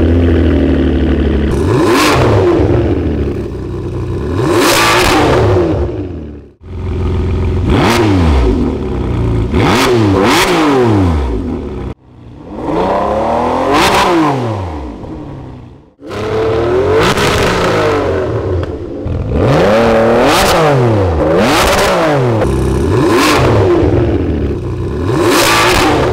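Ferrari 599 GTB's V12 revved hard in neutral, about eight sharp blips that each climb and fall back, heard in short clips through an aftermarket valvetronic catback exhaust; the blip about midway, around fourteen seconds in, is through the original exhaust.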